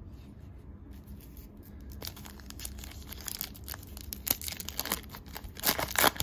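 Trading card pack wrapper being torn open and crinkled by hand: a run of sharp crackles starting about two seconds in, getting denser and louder toward the end.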